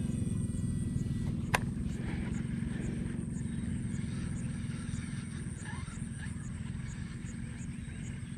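A steady low motor drone with a fast, even pulse, like a small engine running, with a single sharp click about a second and a half in.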